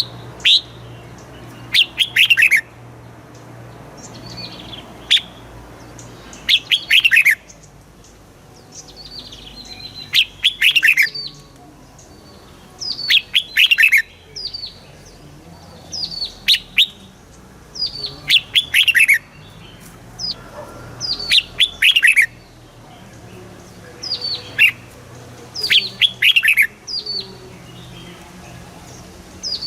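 Red-whiskered bulbul singing: short, quick phrases repeated every two to three seconds, each a run of notes falling in pitch.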